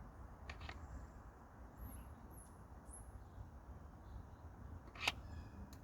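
Quiet handling noise while a bit is changed in the drill: a couple of light clicks, then one sharp click about five seconds in, over a low rumble. A few faint high chirps come in the middle.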